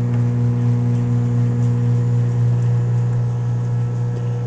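Microwave oven running, a steady low hum.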